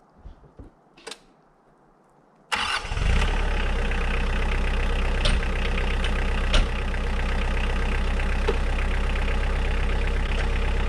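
A few faint clicks, then about two and a half seconds in a Kioti DK40se tractor's diesel engine comes in suddenly and runs steadily.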